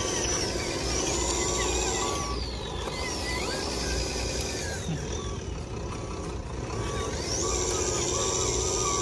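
Electric motors of RC model construction vehicles whining, their pitch gliding down and up several times as they speed up and slow down, with an intermittent beep-like tone and a low hum underneath.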